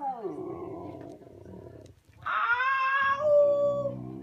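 Siberian husky 'talking'. A long call slides down in pitch into a low grumble. Then, after a brief pause about two seconds in, a louder, higher drawn-out call drops in pitch near its end.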